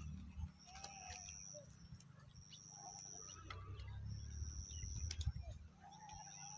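Birds calling outdoors: a high, thin, steady call of under a second, repeated about every one and a half seconds, with shorter lower calls between, over a faint low rumble.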